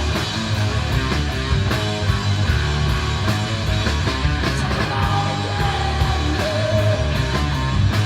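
Loud rock music with a driving drum beat, heavy bass and guitar, and a voice singing or shouting over it.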